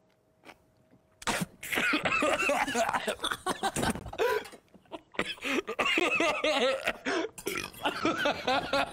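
A man and a woman laughing in fits, with coughs in the laughter, starting about a second in after a near-silent opening; the laughter dies down briefly about halfway, then picks up again.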